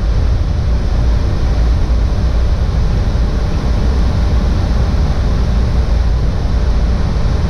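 Steady cockpit noise of an airliner in flight: an even rush of airflow and engine sound, heaviest at the low end.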